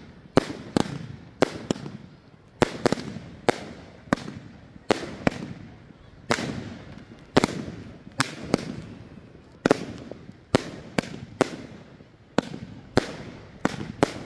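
Aerial fireworks going off in quick succession: a run of loud, sharp bangs at uneven spacing, about two a second, each trailing off in a short rumbling echo.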